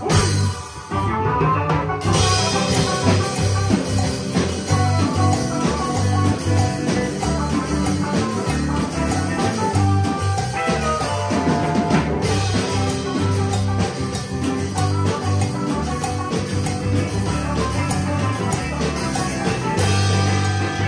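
A small band playing live together: drum kit, Yamaha MOXF6 synthesizer keyboard, electric guitar and bass guitar. The music drops out briefly about a second in, then carries on steadily.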